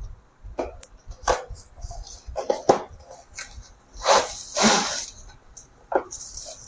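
Packaging being handled as a boxed computer keyboard is unpacked: irregular rustling, crinkling and scraping of cardboard and plastic wrap, with the longest, loudest crinkle about four seconds in.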